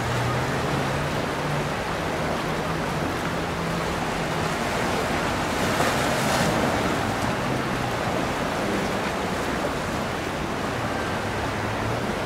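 Waves and surf rushing, with the low drone of a boat engine underneath and wind buffeting the microphone. A louder surge of breaking water comes about six seconds in.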